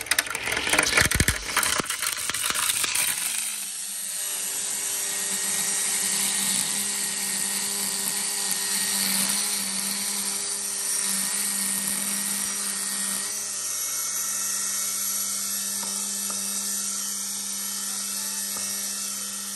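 Greenworks Pro 80-volt cordless electric string trimmer spinning up and cutting grass with its new bump-feed head. It starts with a few seconds of loud clatter, then settles into a steady whine.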